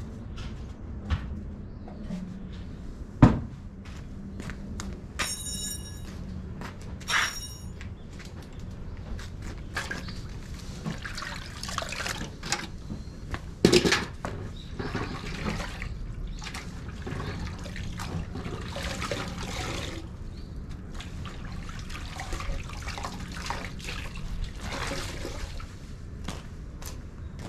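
Water sloshing and dripping as a car's alloy wheel is washed by hand from a metal bucket, with a few sharp knocks, the loudest about three seconds in and again near the middle.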